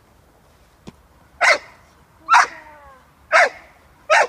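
Six-month-old American Staffordshire terrier puppy barking four times, about one bark a second.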